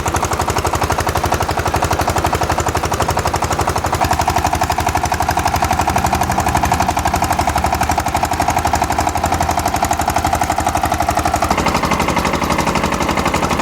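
Engine of an 8-inch irrigation pump unit running steadily under load, with a loud, rapid, even exhaust beat. A ringing tone rises over the beat about four seconds in and shifts higher near the end.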